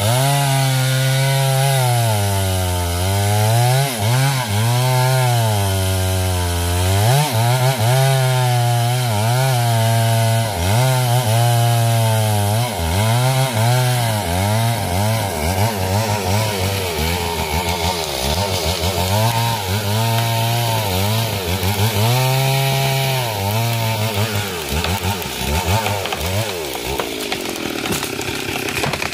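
Stihl MS 382 two-stroke chainsaw cutting wood at high revs, its pitch sagging and recovering again and again as the chain bites under load. Near the end the revs fall away toward idle.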